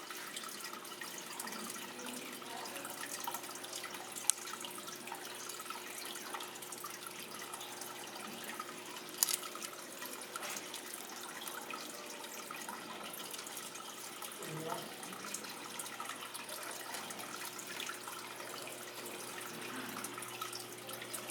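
Faint, steady trickling of running water with a low steady hum beneath it and a few light clicks.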